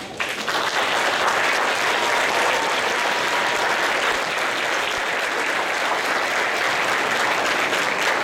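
Audience applauding, swelling in the first second and then holding steady.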